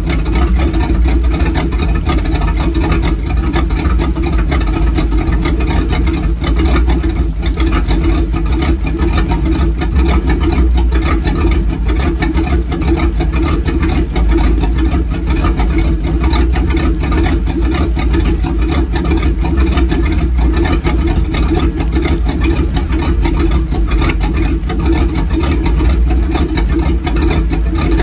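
Speedboat's sterndrive engine idling steadily on the trailer, run on a garden-hose flush hookup to rinse salt water out of its cooling system, with water spraying around the outdrive.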